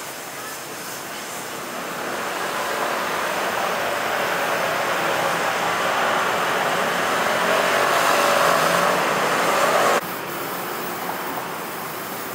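Road traffic noise, swelling over several seconds as vehicles pass, then cutting off abruptly about ten seconds in to a quieter, steady street sound.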